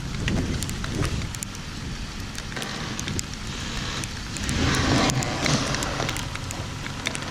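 Pickup truck engine running, swelling louder about four and a half seconds in, with scattered sharp crackling ticks over it.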